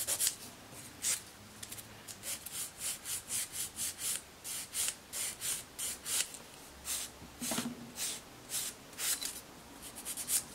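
Hand nail file rasping in short strokes, about two a second, across the edge of an acrylic nail as it is shaped.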